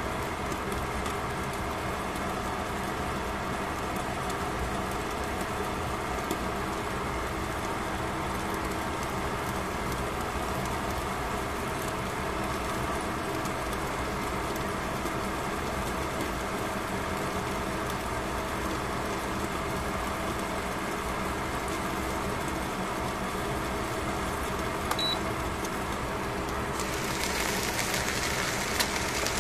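Fish fillets cooking on foil in a covered pan, a faint sizzle under a steady hum. About 27 seconds in the lid comes off and the sizzling turns to a louder, brighter hiss.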